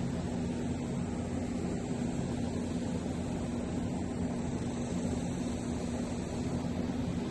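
A steady low hum with a rushing noise, unchanging throughout, with one constant droning pitch in it, like a fan or other running machine.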